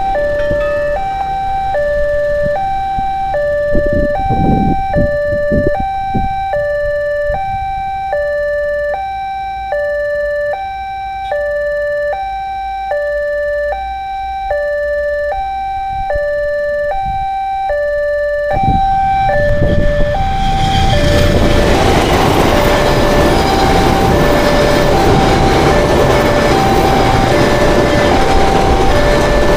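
Railway level-crossing warning alarm from the horn loudspeaker on the signal post, sounding two alternating tones, high then low, about one pair a second. About 20 seconds in, a passenger train passing over the crossing adds a loud rushing rumble under the alarm.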